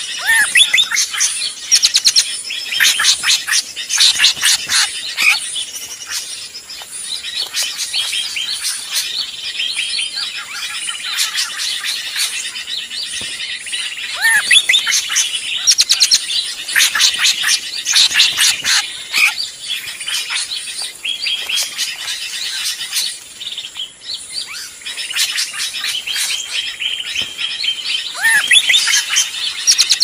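Bird-luring recording of agitated drongo (srigunting) calls: dense, overlapping rapid chirps and whistles, with now and then a lower curved whistle, running on without pause.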